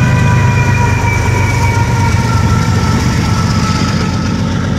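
Norfolk Southern diesel locomotives passing at close range in the middle of a freight train, with a loud, steady, deep engine rumble. Several high steady tones sound over it, sinking slightly in pitch and fading out about halfway.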